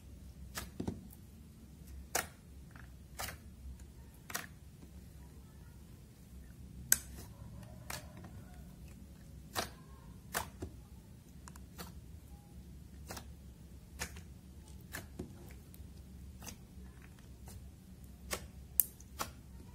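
Metallic eyeshadow slime being folded and pressed by hand, giving irregular sharp clicks and pops as air pockets in it burst, sharpest about seven seconds in and near the end. A faint steady low hum lies underneath.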